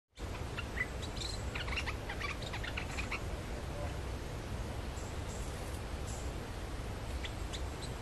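Bulbul calling: a quick run of short chirps and whistles for the first three seconds, then a few more near the end, over a steady low rumble.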